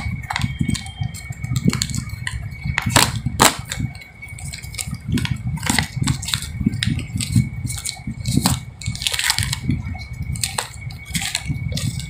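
Plastic wrap and paper wrapping on a sealed pack of banknotes crinkling and tearing as fingers peel it open, in irregular crackles and rustles.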